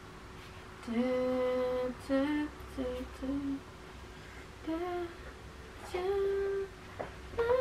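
A woman's voice humming a slow tune without words: a long held note about a second in, a few short notes after it, a pause, then two more held notes.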